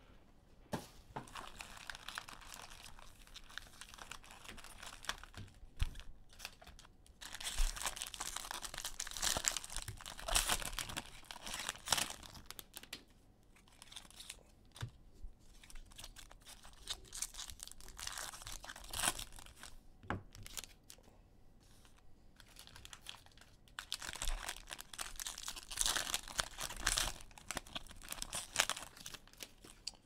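Cellophane wrappers being torn and crumpled off sealed trading card boxes, in repeated bursts of crinkling with short pauses between.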